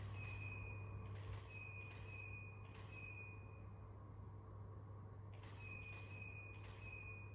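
Camera shutter clicking in quick succession, about two frames a second, each click followed by a short high beep, typical of a studio strobe signalling that it has recharged. The shooting stops for about a second and a half midway, over a steady low hum.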